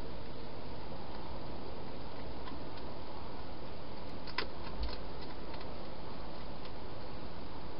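Steady hiss with a few faint sharp clicks about halfway through, from a hedgehog eating out of a bowl inside a plastic feeding box.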